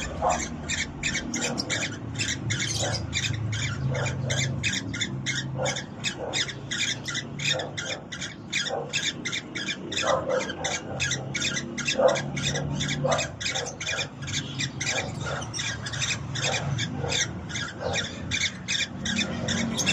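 Cockatiel making a rapid, even run of short chirps, about five a second, with a few lower notes scattered among them.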